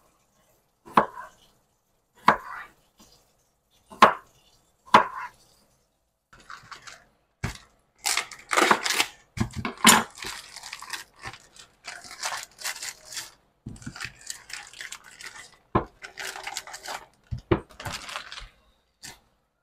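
Chef's knife chopping red potatoes on a wooden cutting board, four sharp chops in the first five seconds. Then ears of corn being husked, a long stretch of ripping and rustling as the husks are torn off, with a few knocks near the end.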